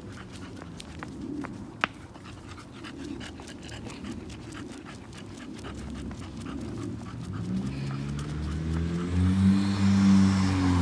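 A dog panting, with light clicks of steps on the concrete. From about seven seconds in, a car approaches on the street beside the sidewalk and its engine grows steadily louder, its pitch starting to fall near the end as it goes by.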